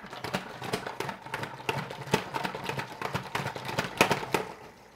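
Salad spinner spinning a batch of washed lettuce: a rapid, uneven clatter with a faint steady whir, stopping about four and a half seconds in.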